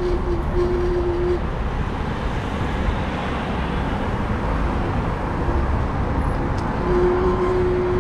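Road traffic noise: a steady rumble of passing vehicles, with a steady hum near the start and again near the end.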